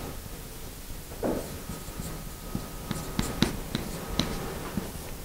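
Marker writing on a whiteboard: a string of short strokes and squeaks as a formula is written, starting about a second in.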